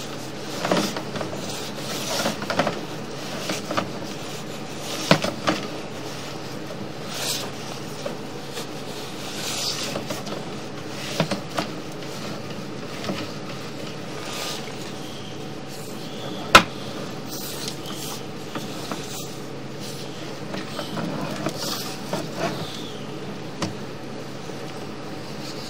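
Scattered knocks, clicks and short scrapes of a sewer inspection camera's push cable being worked back through a pipe thick with buildup, with two sharper clicks about five and sixteen seconds in, over a steady hum.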